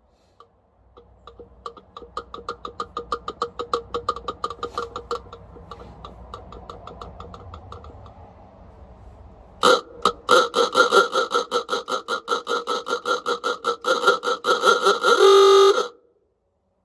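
Antique electric car horn for a Ford Model A, sounding on the bench after a tension adjustment. For several seconds it gives a weaker, rapid rattling buzz. At about ten seconds it comes in loud with a full pulsing honk that lasts about six seconds and cuts off suddenly, which the owner takes for an "ooga" horn.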